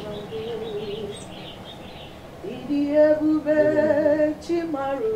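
Female singing in long, held notes with a wavering pitch. The voice grows louder about halfway through.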